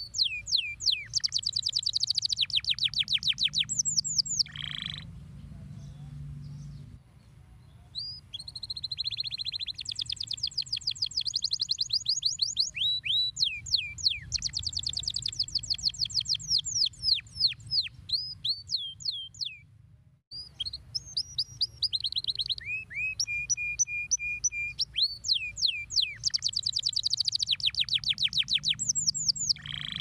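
Domestic canary singing long phrases of fast trills and rapidly repeated notes, with steep sliding whistles between them. The song breaks off about five seconds in, resumes near eight seconds, and pauses again briefly around twenty seconds.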